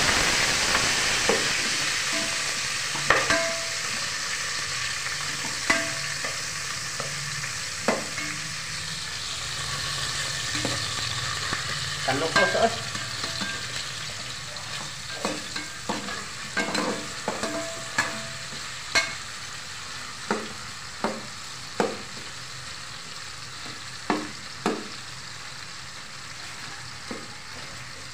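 Chopped vegetables sizzling in hot oil in an aluminium pot, stirred with a metal ladle that clinks and scrapes against the pot's sides every second or so, some clinks ringing briefly. The sizzle slowly dies down as the pan cools with the added food.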